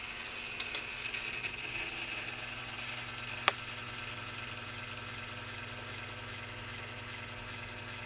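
A whole house fan with two fans running steadily: a low motor hum and the whir of air through the blades. Two quick clicks come near the start, and one sharp click about three and a half seconds in.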